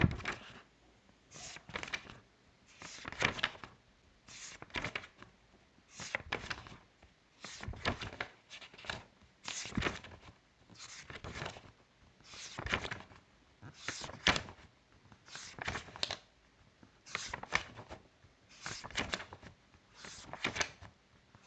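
Paper pages being turned one after another, a rustle and flick roughly every second and a half.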